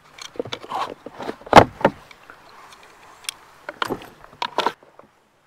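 Hard plastic clicks and knocks from a Railblaza boat wheel being worked into its transom bracket and its retaining clip being fitted, with one loud clunk about a second and a half in.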